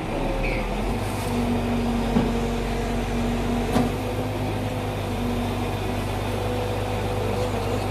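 Lorry-mounted hydraulic crane truck running, a steady engine and hydraulic hum with a faint whine that comes and goes, and a single sharp click about four seconds in.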